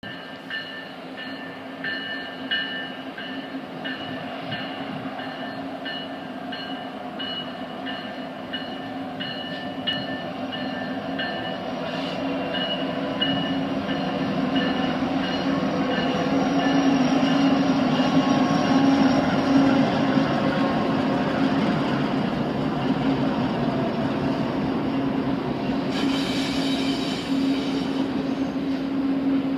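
Long freight train passing: railcars rolling with intermittent high wheel squeal at first. Mid-train diesel locomotives then go by with a steady low engine drone that grows loudest around the middle and carries on as container cars follow. There is a short hiss near the end.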